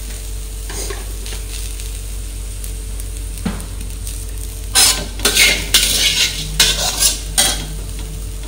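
Steel spatula stirring and scraping a puffed-rice mixture around a metal kadhai, with a run of loud scrapes about five seconds in, over a steady low hum.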